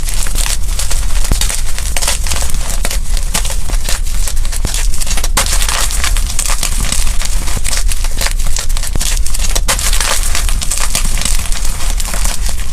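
Blue and pink gym chalk being crushed, a dense run of crunching and crackling that carries on without a break.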